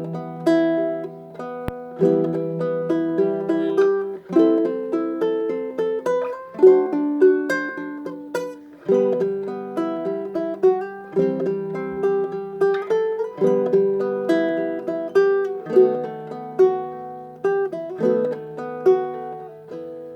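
Cordoba 24B baritone ukulele, with a solid cedar top and laminated spalted maple back and sides, playing a tune: a melody of plucked notes ringing over lower bass notes.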